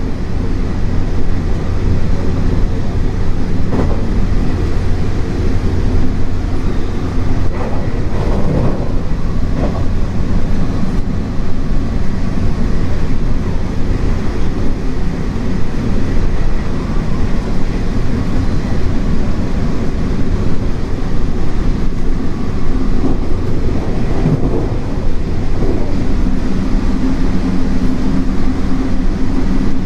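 JR West 225 series 100-subseries electric train running, heard from inside the car: a loud, steady rumble of wheels on track with a low hum, growing a little more tonal in the last few seconds.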